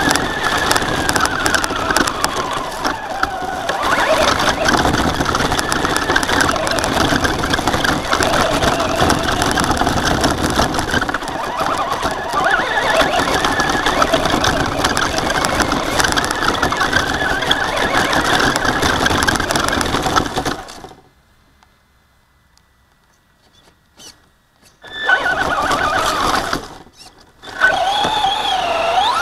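Traxxas Slash RC truck's electric motor and gears whining, the pitch rising and falling with the throttle over a constant rattle of the drivetrain and tyres on rough ground. About three-quarters of the way through it stops for about four seconds, then starts again in short bursts.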